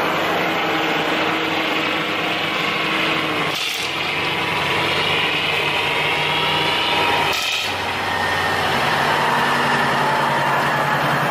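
Diesel engines of classic semi-trucks running steadily as the trucks roll slowly past one after another. The sound shifts abruptly twice, about a third and two-thirds of the way through.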